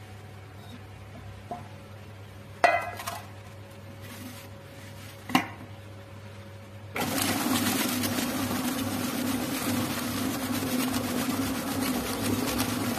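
Commercial planetary mixer with a wire whisk: two sharp metal clanks as the wire bowl guard is swung shut, then about seven seconds in the motor starts and runs steadily, the whisk beating the coconut, sugar and egg mixture.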